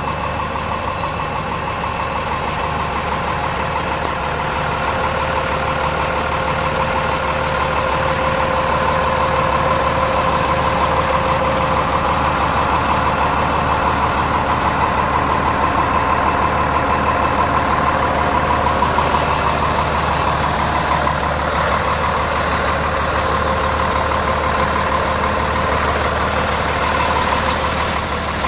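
Diesel engine of a 1988 Kenworth-badged Volkswagen 13.210 cab-over wrecker truck idling steadily.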